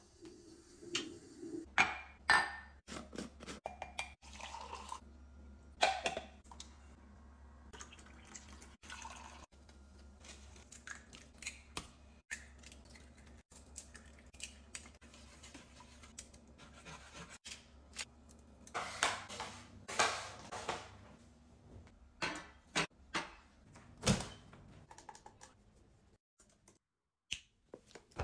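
Household handling sounds: a string of clinks, taps and knocks of kitchenware and dishes, with a steady low hum underneath for most of the time.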